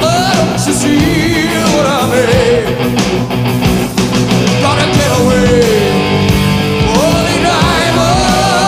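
Loud rock music with a singing voice over a full band.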